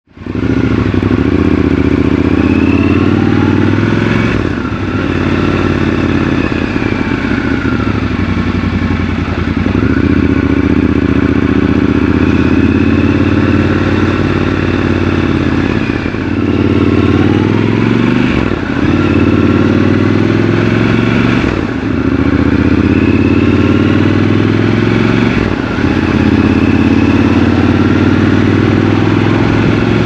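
Triumph Scrambler 1200 XC's 1200 cc parallel-twin engine pulling the bike along, heard from the rider's seat. Its note rises with the revs in each gear and dips briefly at each gear change, several times over.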